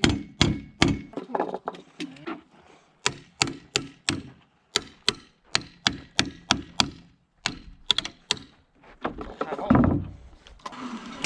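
Hammer driving nails into wooden framing: runs of sharp blows about three a second with short pauses between runs, and a heavier thud near the end.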